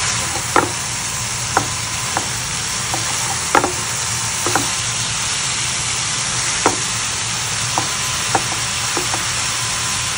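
Sliced chayote, carrot and meat stir-frying in a hot pan: a steady sizzling hiss, broken by scattered light clicks and taps as the mix is stirred with a spatula.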